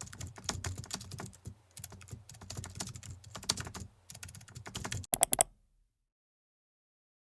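Rapid, irregular clicking of keys typed on a keyboard, ending in a quick flurry of clicks about five seconds in and then stopping.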